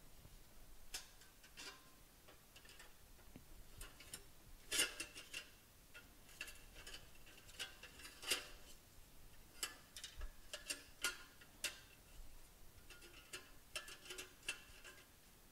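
Irregular clicks and taps of a power supply's plastic fan and metal housing being handled and fitted back together, some with a short ring. Two louder knocks come about five and eight seconds in.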